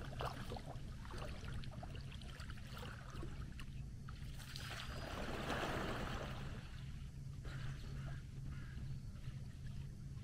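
Lake water splashing as a swimmer dives in, loudest about five to six seconds in, then lighter splashing as he swims.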